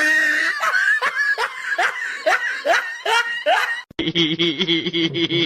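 Someone laughing: a run of quick falling "ha" sounds, about three a second. About four seconds in it cuts off abruptly and a steady, held pitched sound takes over.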